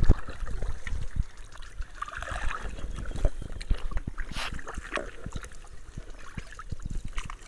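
Kayak paddling: paddle blades dipping into the water, with trickling and splashing off the blades and scattered short knocks and thumps throughout.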